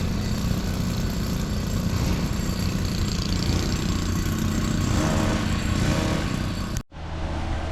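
A motor engine running steadily, cutting off abruptly near the end, after which a lower, steadier engine hum follows.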